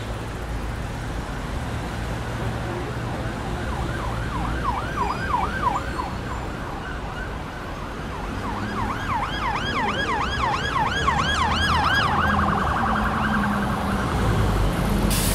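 Emergency vehicle siren in yelp mode over a low traffic rumble: two runs of fast rising-and-falling wails, about four a second, the first a few seconds in and the second past the middle, before it settles into a steadier tone near the end.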